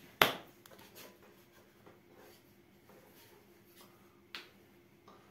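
Handling noises at close range: a sharp click just after the start, a few faint ticks, and a second knock about four seconds in, over a faint steady hum.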